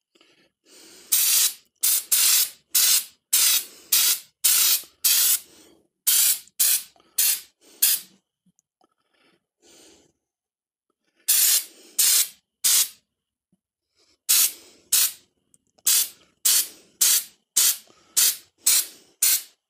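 Aerosol can of rubberized undercoating spraying in quick short hissing bursts, about two a second, in three runs with pauses of a few seconds between.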